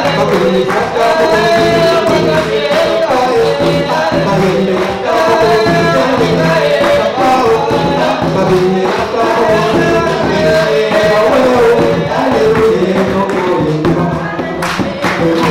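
Church worship song sung by a group of voices to instrumental accompaniment, with a steady hand-percussion beat.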